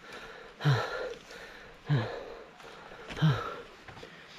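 A man breathing hard, out of breath after a steep uphill climb. Each exhale is a short, voiced breath that falls in pitch, about one every second and a quarter, three times.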